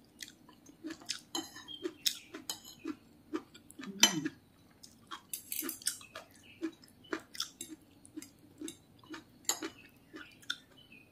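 Metal spoon and fork scraping and clinking against a plate in a run of short, irregular ticks, mixed with close-up chewing and mouth sounds while siomay in peanut sauce is eaten; the loudest knock comes about four seconds in.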